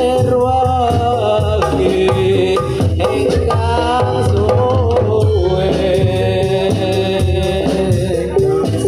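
Javanese gamelan music for Kubro Siswo, played loud through a sound system: gongs and pitched metal percussion over a steady hand-drum beat, with a wavering voice singing the melody.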